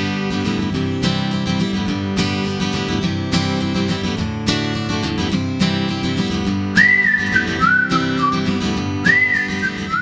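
Background music: acoustic guitar strumming, with a whistled melody coming in over it about two-thirds of the way through.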